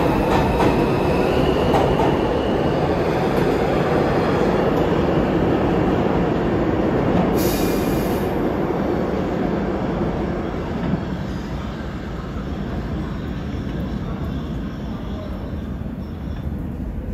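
New York City subway train, an R142 on the 2 line, pulling out of the station and running off into the tunnel: a steady rumble of wheels and motors that fades gradually. A high whine steps up in pitch in the first couple of seconds, and a brief high hiss comes about seven seconds in.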